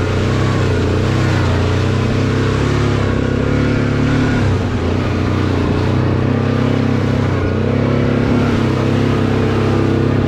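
ATV engine running at a steady pace as the quad rides along a rutted, muddy track, easing off briefly about halfway through.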